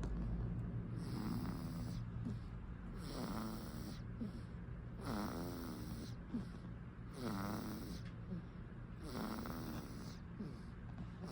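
A one-month-old baby snoring in its sleep, a snore about every two seconds, five in all, each a short wavering breath with a light rattle. A steady low hum runs underneath.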